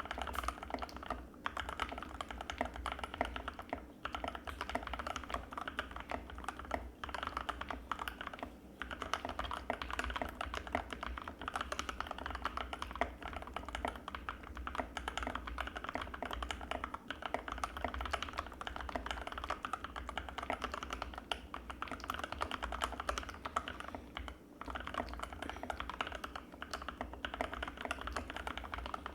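Fast, continuous typing on an Anne Pro 2 mechanical keyboard with Gateron Red linear switches: a dense stream of key clacks with a few short breaks.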